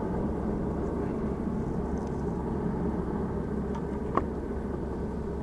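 Steady low rumble of vehicle traffic on the elevated toll road overhead, with a single sharp click about four seconds in.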